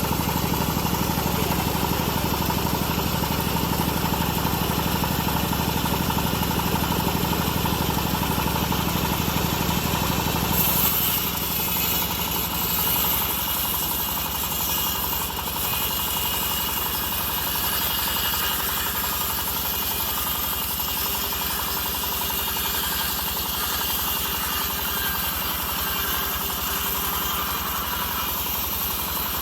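Engine-driven home-built bandsaw mill running steadily. About ten seconds in, the deep engine drone weakens and a higher hiss grows stronger.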